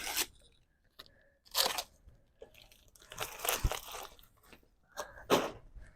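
Crunching, crackling rustles of packing material being handled, in four short bursts.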